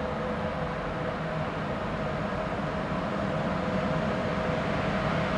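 Electric locomotive and its train approaching: a steady hum with a few held tones, growing slowly louder.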